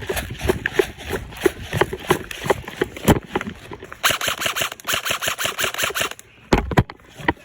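An airsoft gun firing a full-auto burst of about two seconds, beginning about four seconds in: a rapid, even rattle of shots. Before it come irregular footsteps and rustling, and near the end a couple of low thumps.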